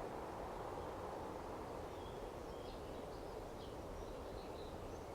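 Steady outdoor background noise with faint, short bird chirps from about two seconds in.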